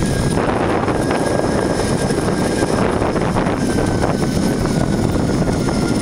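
Zipline trolley running fast along the steel cable: a steady whirring rush with a thin high whine that drops slightly in pitch now and then, over heavy wind on the microphone.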